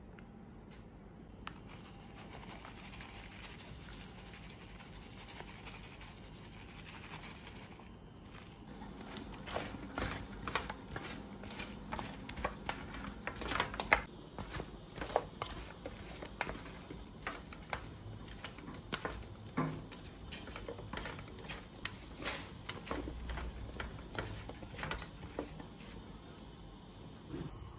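Halved Brussels sprouts being stirred and tossed in a stainless steel pan with a wooden spatula. After a quiet start, there are irregular clicks, knocks and scrapes of the spatula and sprouts against the metal.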